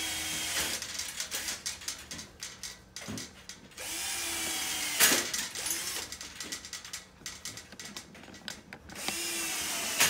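Power drill running in short bursts of about a second, three times, drilling pilot holes. Quick clicks and knocks come between the bursts.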